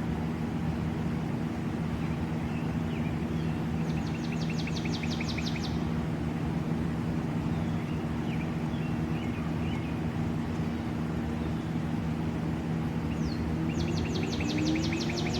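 A steady low hum under outdoor background noise. Twice, about four seconds in and again near the end, a rapid high trill sounds for a second or two, likely a small bird.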